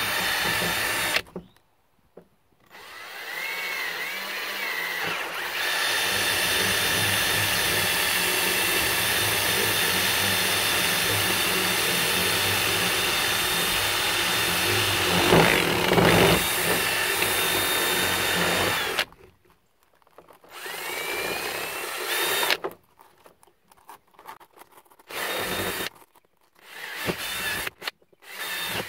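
Cordless drill boring into a plastic pipe cap, widening the holes for the plucker's rubber fingers. A brief run at the start, then the motor spins up and runs steadily for about fifteen seconds before stopping, followed by several short start-stop bursts near the end.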